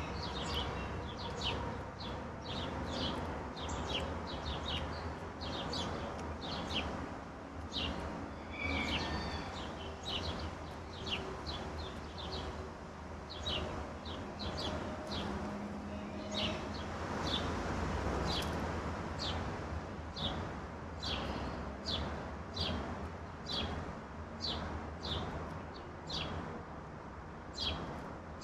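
Songbirds chirping: short, sharp chips repeated about twice a second, with a brief flurry of other calls about a third of the way in, over a steady low background rumble.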